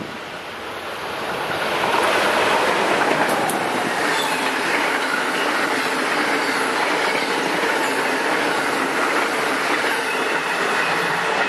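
Electric locomotive-hauled Amtrak passenger train passing close at high speed. The rush of its wheels on the rails swells over the first couple of seconds, holds steady and loud as the coaches go by, and falls away near the end as the last cars clear.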